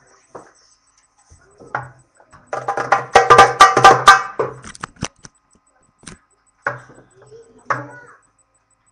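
Darbuka (goblet drum) struck by hand: a fast, loud flurry of strokes lasting about two seconds, then a few single strokes spaced out.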